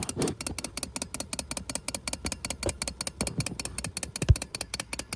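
Clockwork wind-up tin toy frog hopping: its spring-driven mechanism makes a rapid, even clicking, with one louder knock near the end.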